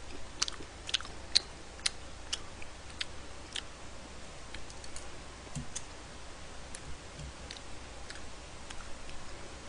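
Faint, irregular light clicks and ticks from eating at the table: chewing, chopsticks and pork belly in a frying pan. The clicks come about two a second for the first few seconds and thin out after, over a faint low hum.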